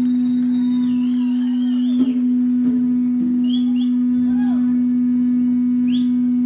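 A single steady tone from the stage's amplified sound system, held at an even loudness without fading, with faint wavering whistle-like glides above it.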